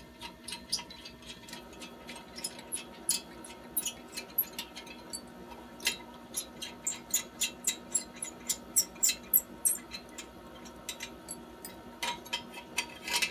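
Ratchet wrench clicking in short irregular runs, a few clicks a second, as the muffler clamp nut on the exhaust is tightened. A faint steady hum sits underneath.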